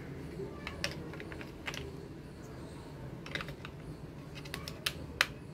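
AA batteries being fitted into a toy bubble gun's plastic battery compartment: scattered light clicks and taps, the sharpest two near the end.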